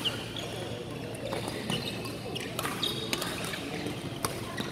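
Badminton rally: several sharp racquet hits on the shuttlecock, with short squeaks of court shoes on the floor between them, in a large hall.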